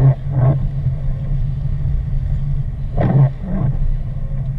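Steady low drone of a car driving on wet road, heard from inside the cabin, with the windshield wipers swishing across the wet glass: a quick pair of strokes at the start and another about three seconds in.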